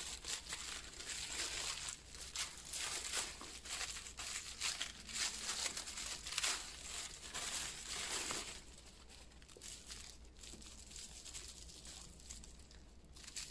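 Tissue paper stuffing rustling and crinkling as it is pulled out of a leather handbag: dense crackling for about eight seconds, then softer and sparser.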